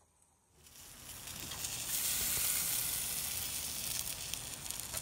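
Shrimp and frog legs sizzling in aluminium-foil trays on a grill while lemon juice is squeezed over them. The sizzle comes in about half a second in, builds to its loudest about two seconds in, then eases a little, with fine crackles throughout.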